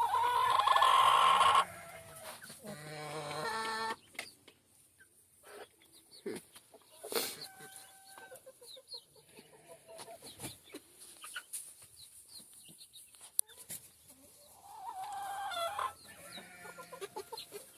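Chickens clucking and calling, with a loud drawn-out call at the start, another shortly after, scattered short clucks through the middle and another drawn-out call near the end.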